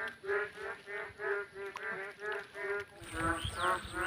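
An animal calling over and over, one short nasal call about three times a second. Faint high bird chirps join in about three seconds in.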